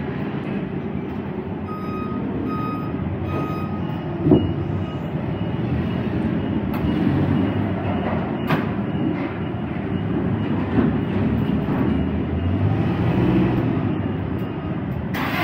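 A forklift's reversing alarm beeps three times, evenly spaced, about two seconds in, over a steady low engine rumble. Later come a couple of sharp knocks.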